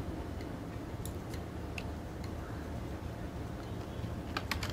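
Faint clicks of a computer keyboard and mouse during text editing: a few separate clicks about a second in, then a quick run of clicks near the end, over a low steady hum.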